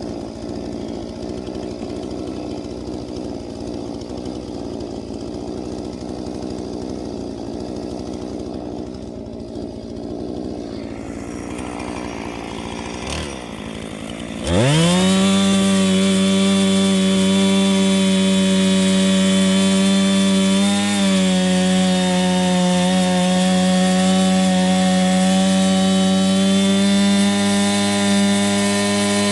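Two-stroke chainsaw idling, then about halfway through revved up quickly to full throttle and held at a loud, steady high pitch.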